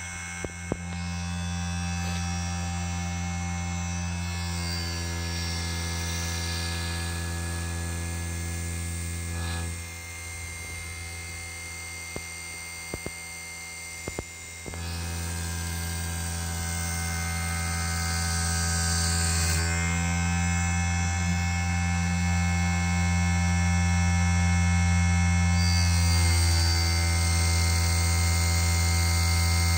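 Small CNC1610-based NC lathe running under motor drive: a steady electric motor hum with whining tones that shift in pitch as the machine's motion changes. It drops away about ten seconds in and comes back about five seconds later, with a few sharp clicks.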